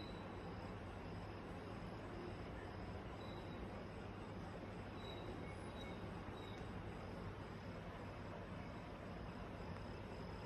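Steady background hiss with a faint, high insect chirp, like a cricket's, repeating evenly about twice a second.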